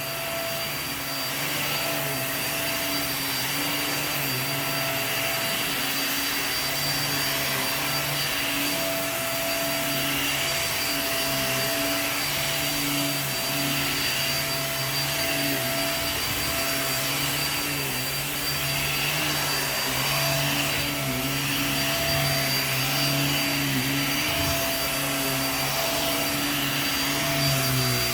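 Hoover React QuickLift upright vacuum running on carpet with its brush roll on: a steady motor hum and a high whine over rushing air, the pitch wavering slightly.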